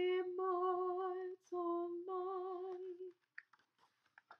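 A woman's solo voice singing a hymn unaccompanied in long held notes, stopping about three seconds in. A few faint short clicks follow.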